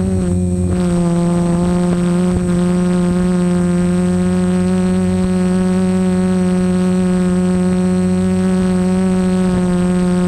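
Multirotor camera drone's motors and propellers humming at a steady pitch while it hovers and drifts, with a slight waver in the tone.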